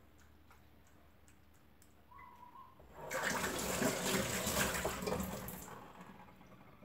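Kitchen tap running onto hands being rinsed in a stainless steel sink: the water comes on about three seconds in, runs for a couple of seconds and tapers off.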